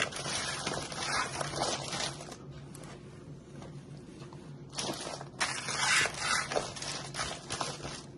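Hands tossing oiled sweet potato cubes on a foil-lined baking sheet: the foil crinkles and rustles in two spells, with a quieter pause in the middle.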